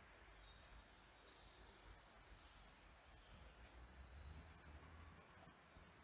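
Faint woodland ambience with small birds calling: short high whistled notes early on, then a rapid trill of about eight notes in a second, four to five seconds in, over a low steady rumble.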